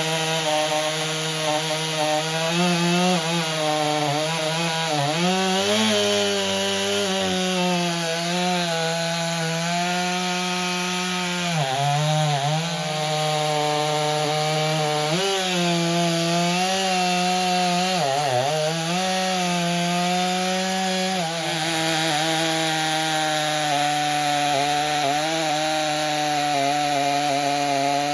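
Stihl MS 500i fuel-injected two-stroke chainsaw running at high revs while cutting through a log. Its pitch sags briefly and recovers several times as the chain loads up in the wood, and it drops away near the end as the throttle comes off.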